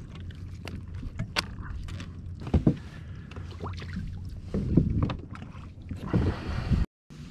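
Ambient sound aboard a Hobie Outback fishing kayak on the sea: steady water and wind noise with many small clicks and knocks of gear against the hull, a couple of louder knocks in the middle. The sound cuts out completely for a moment near the end.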